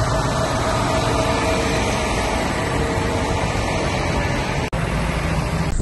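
Heavy vehicle engines running steadily in a loud rumble, cutting out for an instant about four and a half seconds in.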